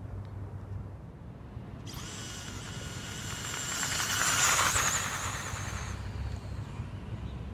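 Electric RC drag car on a 2S 7.4 V battery making a pass: its motor whine starts suddenly about two seconds in, builds to its loudest around four and a half seconds, and fades out near six seconds.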